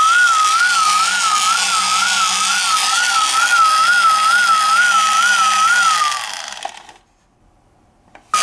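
Toy police car's electronic siren warbling fast, about two pitch swings a second, over a steady hiss. About six seconds in it sags in pitch and cuts out. After a second of near silence it starts again abruptly near the end.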